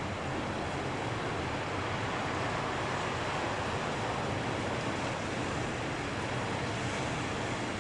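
Ocean waves breaking and washing on a shore, a steady rushing surf that swells slightly a few seconds in.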